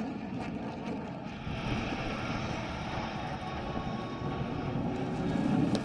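Jet aircraft flying past overhead: a steady rushing jet-engine noise that swells slightly near the end.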